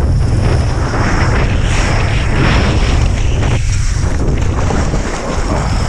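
Strong wind, about 20 knots, buffeting the microphone in a loud, steady rumble with a rushing hiss, while kitesurfing.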